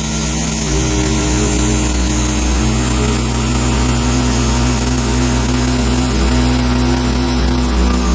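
Wood-Mizer LX150 bandsaw mill running steadily under load as its band blade saws through a magnolia log, an even engine hum under a bright, hissing cut.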